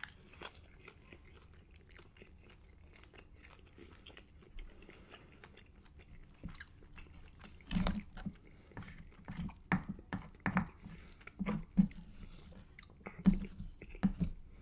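Close-miked chewing of a mouthful of spicy rice with cheese, soft and faint at first; from about eight seconds in, louder irregular clicks and scrapes of a wooden spoon against the metal pan mixed with wet mouth sounds as more rice is scooped and eaten.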